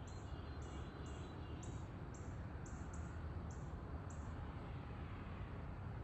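Rural dawn outdoor ambience: a steady low rumble of background noise, with a short, high-pitched chirp repeating about twice a second that stops about four seconds in.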